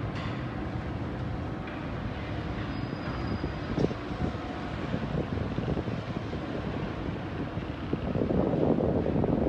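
Wind buffeting the microphone of a phone hung from a crane hook, over a steady low rumble. A single knock about four seconds in, and the wind swells louder near the end.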